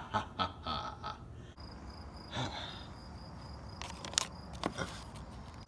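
Crickets chirping in a steady pulsing trill that begins about a second and a half in. There are a couple of sharp clicks about four seconds in.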